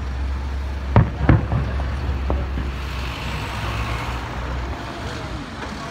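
Aerial firework shells bursting: two sharp bangs about a second in, a fainter one a second later, over a steady low rumble.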